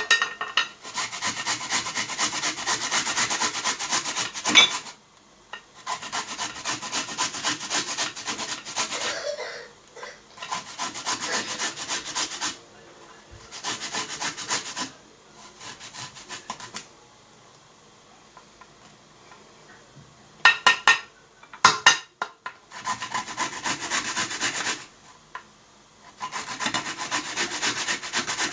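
Turnip being grated by hand on a grater: bouts of quick rasping strokes, each a few seconds long, with short pauses between them, and a few sharp knocks about two-thirds of the way through.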